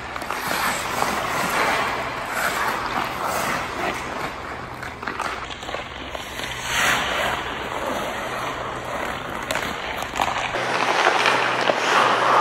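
Hockey skate blades carving and scraping on rink ice as a player stickhandles a puck, the scraping swelling and fading with each stride and turn, with a few sharp clicks of stick and puck.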